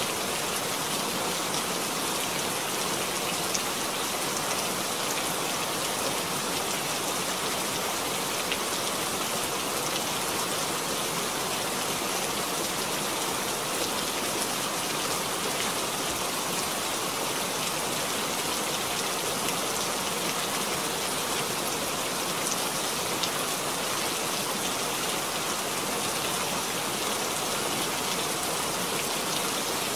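Steady rain, a dense, even hiss of drops splashing onto a puddle, with the odd louder drop standing out.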